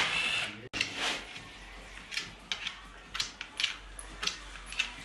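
A cordless drill-driver whirs briefly as it backs out an oil-pan bolt on a BMW 6HP19 automatic transmission, then cuts off abruptly. It is followed by scattered light metallic clinks and taps of the loose pan bolts and pan being handled.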